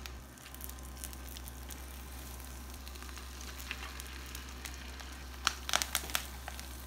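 Veggie bacon, onions and garlic sizzling in olive oil on an electric indoor grill's hot griddle plate as oil-sprayed romaine lettuce halves are laid down on it; a steady sizzle, then sharp crackling pops from about five and a half seconds in.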